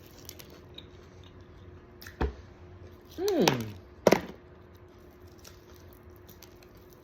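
Biting into a piece of crispy fried chicken: a sharp crunch about two seconds in, then a falling "mmm" hum of approval and another sharp crunch about a second later.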